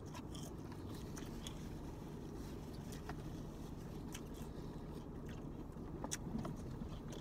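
Two people chewing salad, with scattered small clicks and scrapes of plastic forks against plastic salad bowls, the sharpest about six seconds in, over a steady low hum.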